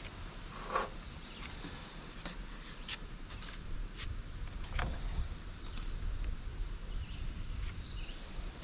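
Scattered light clicks, taps and scrapes of body filler being prepared by hand: a can of metal-filled body filler set down on a diamond-plate toolbox, filler scooped out onto cardboard with a stick and hardener squeezed from a tube, over a low steady rumble.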